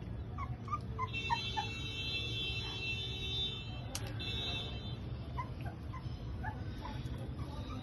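Rottweiler puppies whimpering and yipping in short, high squeaks as they wrestle, over a low steady rumble. From about a second in, a steady high tone runs for nearly four seconds, broken by a click near the four-second mark.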